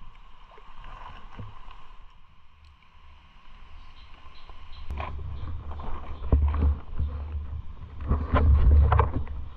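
Plastic tarp rustling and crinkling, with low rumbling knocks of the camera being handled, as a person settles down on the tarp. It starts about halfway through and is loudest near the end.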